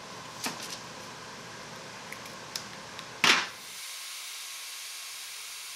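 Spring clamps being taken off a freshly glued knife handle: a few light clicks, then a louder brief clatter about three seconds in, over a steady hiss.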